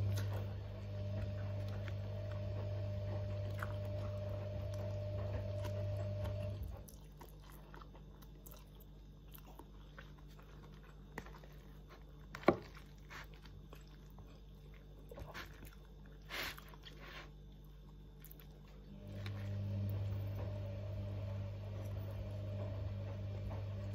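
Chewing and biting sounds over the steady hum of a washing machine running in the room; the hum stops about seven seconds in and starts again about nineteen seconds in. A single sharp click about halfway through is the loudest sound.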